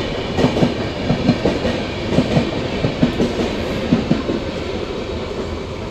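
Passenger coaches of an Indian Railways express rolling past close by, their wheels clacking over rail joints. The clatter eases near the end as the last coaches go by.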